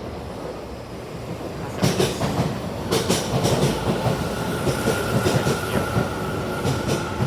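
Tokyu 50050 series electric train moving along the platform, its wheels clattering over rail joints in quick knocks that get louder about two seconds in. A steady high tone joins from about four seconds in.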